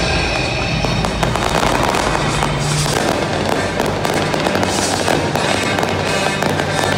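Fireworks display: a dense, continuous crackling and popping of bursting aerial shells and crackle stars, over music with low held notes.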